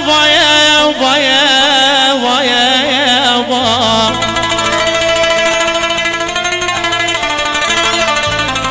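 Instrumental Middle Eastern music with no singing. For about the first four seconds a melody line wavers and ornaments in pitch; after that a quick plucked-string passage takes over, over a steady low bass.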